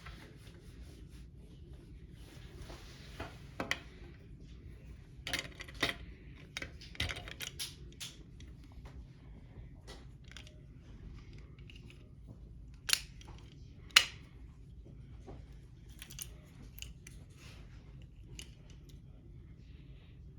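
Small plastic kit parts being handled and clicked together, scattered light clicks and rustles with two sharp, louder snaps about two-thirds of the way through.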